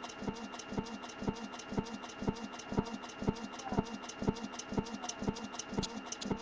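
Backing track of a hip-hop song playing with no voice over it, a steady beat of about two strokes a second with lighter ticks between.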